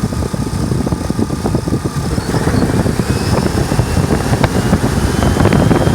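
Car engine in an open engine bay being revved up from idle, growing louder from about two seconds in, raising engine speed to check the alternator's charging output under load.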